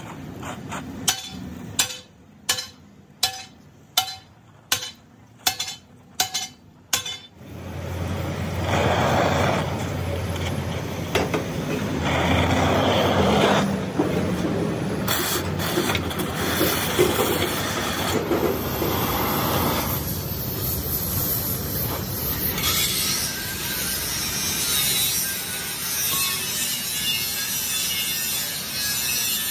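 About ten evenly spaced hammer blows on metal, each with a short ring. Then, about seven seconds in, a steady rasping noise of abrasive work on the metal part begins and continues.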